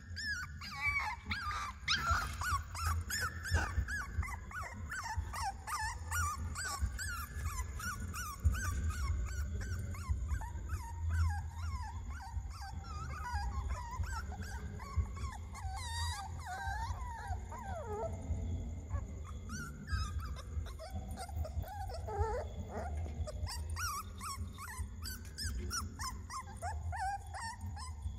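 Puppy screaming: a near-continuous run of short, high, wavering cries, over a steady low rumble.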